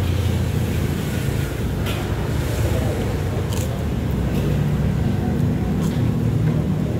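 Steady low rumble of engines from street traffic, with a few light clicks over it.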